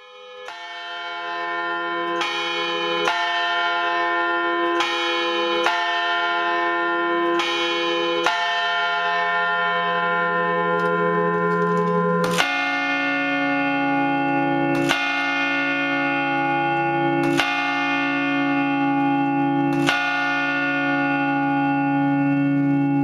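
Church bells ringing, fading in at the start, each stroke ringing on in a rich cloud of overtones. About twelve seconds in, the peal changes to lower, heavier strokes about every two and a half seconds.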